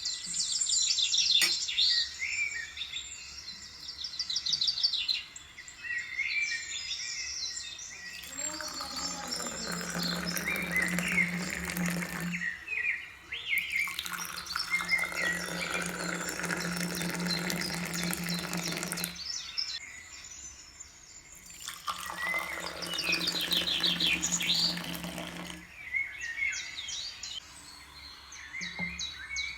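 Small birds chirping and trilling in quick high runs. Three times, a steady rushing noise with a low hum comes in for several seconds and then cuts off.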